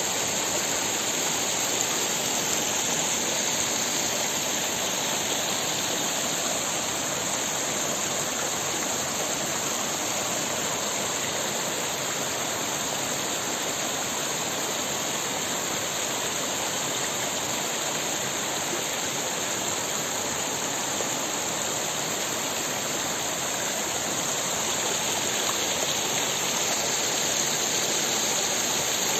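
Small mountain stream rushing steadily over rocks, water spilling in little cascades between the stones.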